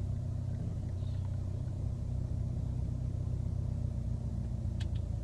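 Steady low rumble of a car heard from inside the cabin, with a faint steady hum over it and a small click near the end.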